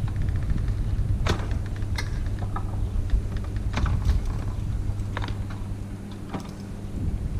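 Scattered light clicks and knocks of gear being handled in a sailboat's stern locker, about one a second, over a steady low rumble.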